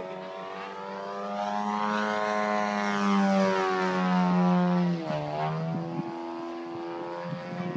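Radio-controlled aerobatic model biplane's engine and propeller running at high power during aerobatics, swelling louder for a few seconds, then its pitch drops sharply about five seconds in and it holds a lower, steady note.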